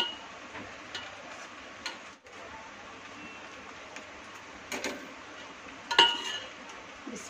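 A metal spoon knocks against an aluminium cooking pot in a few sharp clinks. The loudest comes about six seconds in and rings briefly. Near five seconds there is a quick pair of scissor snips as a plastic milk packet is cut open, all over a steady low hiss.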